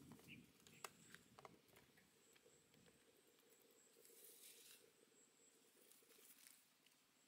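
Very faint handling sounds: a few light clicks as ingredients are set into a metal wok, and soft rustling of leaves being dropped in.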